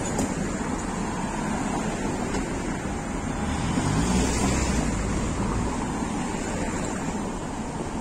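Road traffic on a busy city street: cars and vans drive past close by in a steady rush of tyre and engine noise. A van passing close swells the low rumble about four seconds in.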